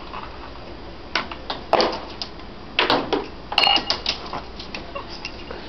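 Small metal objects clinking and clattering on a steel workbench: an irregular series of sharp clinks, one about three and a half seconds in ringing briefly.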